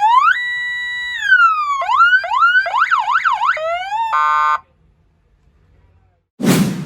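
Electronic 200-watt police siren for a car cycling through its tones: a rising wail held high then falling, a few quick rising yelps, a fast up-and-down warble, then a short steady horn blast, cutting off about four and a half seconds in. Near the end comes a short whoosh.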